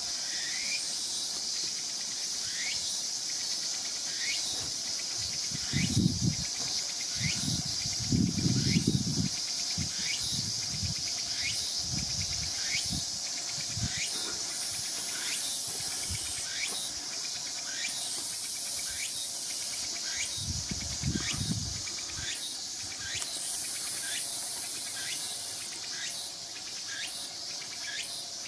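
A steady outdoor chorus of insects, high and continuous, with a short rising chirp repeating about once a second. A few low bumps and rumbles stand out, the loudest about six and eight seconds in.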